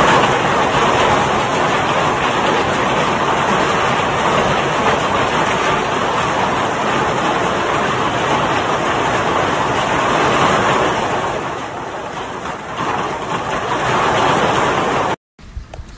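Violent hailstorm with strong wind: a dense, continuous roar of hailstones beating down, heard from behind a window. It cuts off abruptly about fifteen seconds in.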